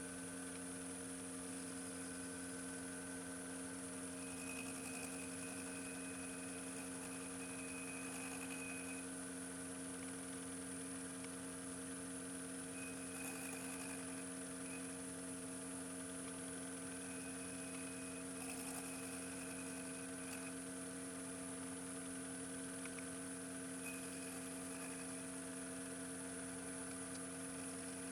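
Steady hum made of several unchanging tones, with a faint high whine. A slightly higher tone fades in and out several times.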